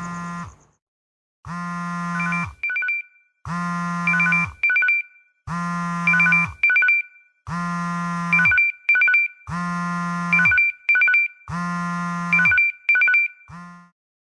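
Sony smartphone alarm going off. A buzzy electronic tone about a second long is followed by a quick run of high chirps, and the pattern repeats about every two seconds. Near the end it is cut off partway through a cycle as the alarm is silenced.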